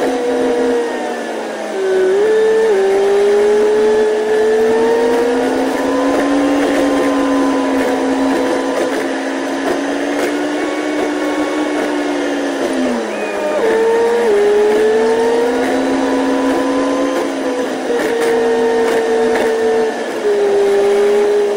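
Double-decker bus driving on an expressway, its engine and drivetrain drone sped up eightfold into a high, steady whirring hum. The pitch rises and falls slowly and jumps abruptly a few times.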